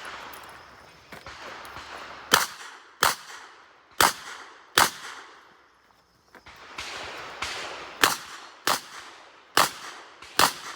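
Revolver firing eight shots in two strings of four, the shots in each string under a second apart, with a pause of about three seconds between the strings.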